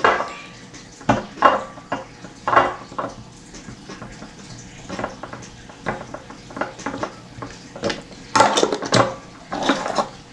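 Scattered clinks and knocks of a jar and kitchen utensils being handled as slime is pressed into the jar, with the loudest cluster of knocks near the end.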